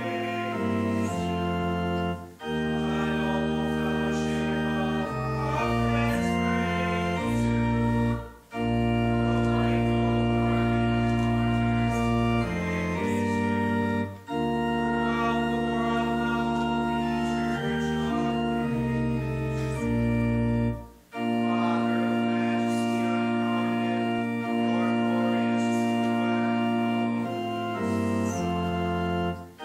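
Organ playing slow, sustained chords in hymn-like phrases. Each phrase ends in a short break, about every six seconds.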